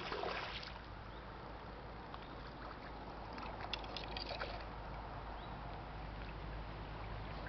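A hooked asp splashing at the water surface as it is played on a fly rod: a burst of splashing right at the start, then more splashing with some sharp clicks about four seconds in.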